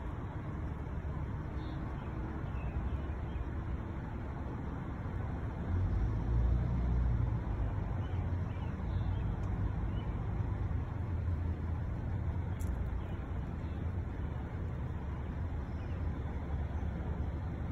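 Steady low rumble of motor-vehicle traffic, growing louder about six seconds in and staying up.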